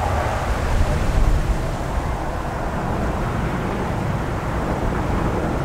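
Engine noise of an Airbus A380-861's four Engine Alliance GP7200 turbofans as the airliner climbs away after take-off: a steady low rumble, slightly louder about a second in.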